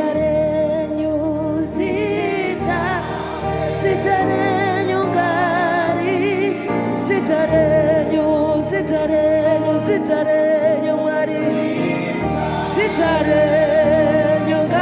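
Gospel worship music: a voice singing with wavering vibrato over held chords and a steady bass.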